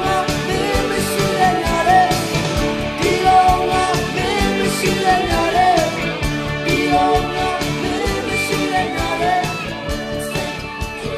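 Burmese pop song: a singer's voice carrying the melody over guitar and a steady drum beat.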